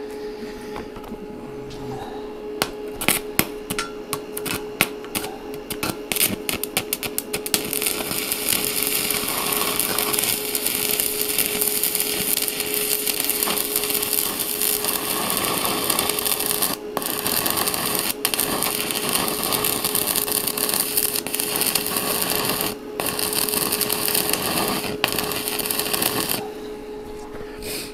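Stick (MMA) arc welding with a small inverter welder on thin 2–3 mm steel plate. There is a few seconds of separate crackles as the electrode strikes, then the steady crackle and sizzle of the arc, which breaks off briefly a few times and stops near the end. The current is set too high for this thin metal, and it is burning through.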